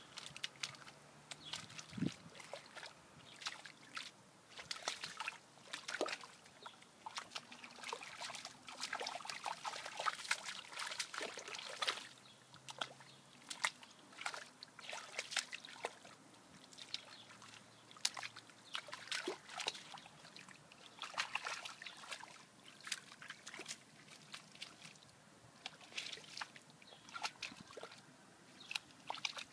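Dog splashing about in a shallow muddy puddle: irregular sloshing and splashing of water, coming in uneven clusters.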